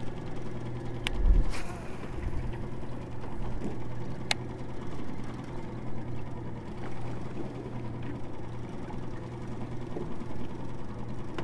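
Baitcasting fishing reel being cranked to reel in a hooked fish: a steady mechanical whir with a constant low hum, and a couple of sharp clicks, one about a second in and one about four seconds in.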